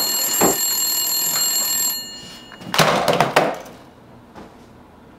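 A telephone's steady electronic ringing tone, several high pitches held together, for about two seconds before it cuts off. Just under a second later comes a loud, harsh noise with a few sharp knocks, lasting about half a second.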